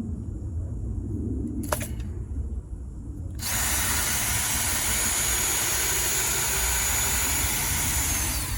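Power drill running steadily for about five seconds, over a low rumble, with a single sharp click about two seconds in.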